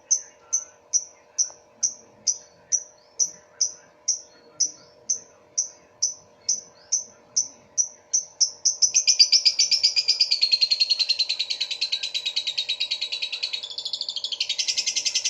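Lovebird singing: short, sharp 'cough' notes (batuk) repeated about twice a second, then, about nine seconds in, a long continuous chattering trill that sinks slightly in pitch and cuts off abruptly after about six seconds.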